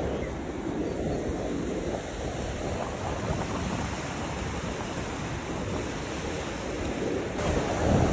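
Sea waves washing onto a sandy beach, rising and falling in a steady wash, with wind buffeting the microphone.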